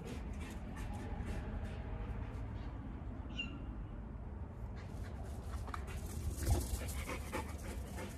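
A dog panting and moving about as it plays, with a brief high whine about three seconds in and a steady low rumble underneath.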